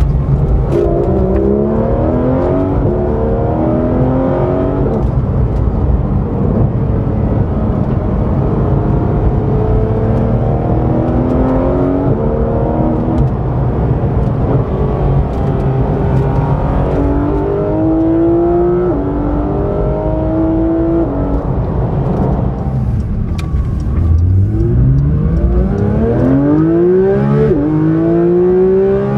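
Porsche GT3's naturally aspirated flat-six accelerating hard through the gears, its note climbing and dropping sharply at each upshift. About 22 seconds in it falls to a low note, then pulls again from low revs, climbing quickly through two more upshifts.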